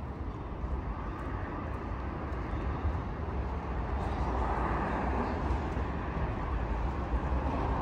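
City street traffic: a steady low rumble with the engine and tyre noise of passing cars, swelling louder about halfway through as a vehicle goes by.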